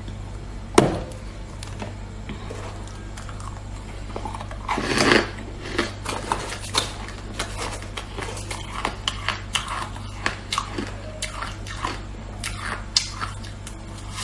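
Shaved ice being bitten and chewed close to the microphone: a sharp bite about a second in, a longer crunch around five seconds, then a run of short crunching clicks as the ice is chewed. A steady low hum runs underneath.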